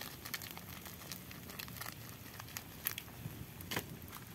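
Faint crinkling of a plastic seasoning sachet being handled and shaken over a wok, with the light crackle of the wood fire beneath it; a few sharp ticks stand out, the loudest near the end.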